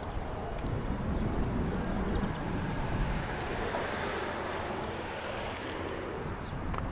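Outdoor ambience dominated by wind buffeting the microphone, a choppy low rumble over a steady rush of noise, with a faint high chirp right at the start.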